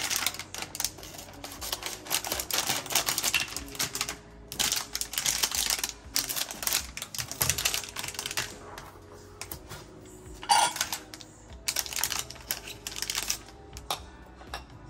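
Rapid clicking and clattering in bursts of a few seconds each as a wooden spoon is worked into a sugar container and its lid. One louder, sharper clack comes about two-thirds of the way through.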